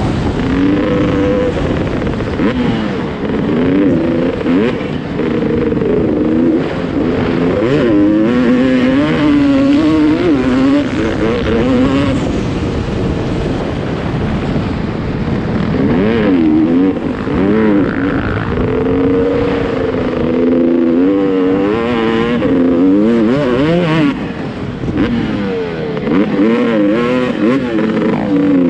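Off-road dirt bike engine revving up and down as it is ridden, its pitch rising and falling every second or two over a rough, noisy background.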